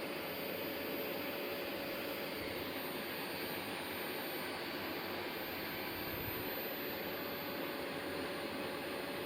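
Vacuum cleaner running steadily: an even rushing drone with a faint steady whine in it.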